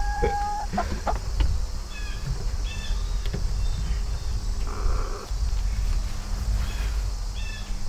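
Outdoor ambience dominated by a low rumble of wind on the microphone. Over it come a few short bird chirps, a faint steady insect hum, and a few light clicks as a power cord is handled.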